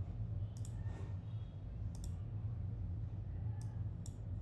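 Four sharp computer mouse clicks spread over about four seconds, over a steady low hum.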